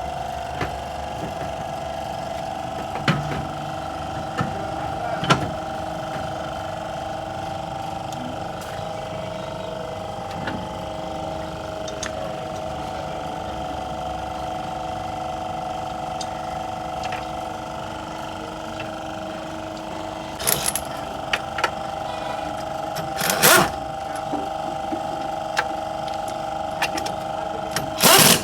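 A steady mechanical hum with a few sharp knocks over it. The knocks bunch together a little past two-thirds of the way through, and the loudest comes near the end.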